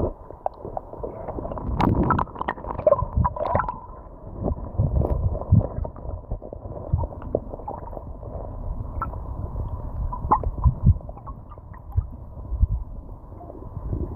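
Shallow stony river heard through a camera held underwater: a muffled, low rumbling and gurgling of flowing water, broken by irregular knocks and clicks.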